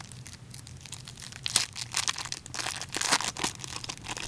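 Crinkling and rustling of a trading card pack wrapper being handled and torn open, in a dense crackly run that is loudest through the middle.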